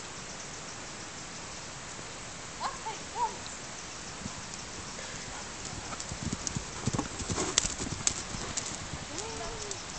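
Hoofbeats of a cantering horse on a chipped arena surface, growing louder from about six seconds in and loudest as it passes close by. A few brief high-pitched calls sound near three seconds and again near the end.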